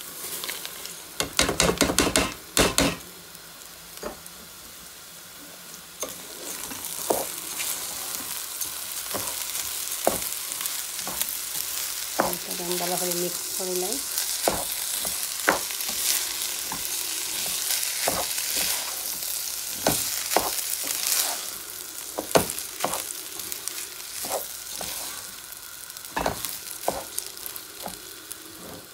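Raw rice poured into a pot of hot ghee with fried onions makes a loud dense rattle for about two seconds. Then the rice sizzles as it fries in the ghee, with a wooden spoon stirring and knocking against the pot many times.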